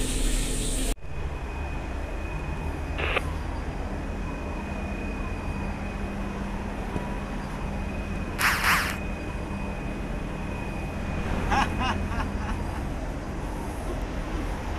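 A steady low rumble of a container ship's machinery on the open deck, with a faint, high, steady tone over it. It takes over suddenly about a second in, after the last of the galley sounds. A short, loud sound cuts through about eight seconds in.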